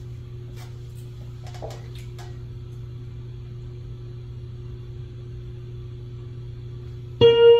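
Steady low electrical hum with a few faint clicks and shuffles, then, near the end, an electronic keyboard strikes a loud sustained note as the playing begins.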